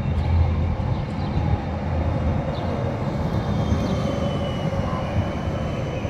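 Low-floor Siemens Combino tram passing at close range: a steady low rumble of steel wheels on the street rails. A thin electric whine joins it about four seconds in as the cars go by.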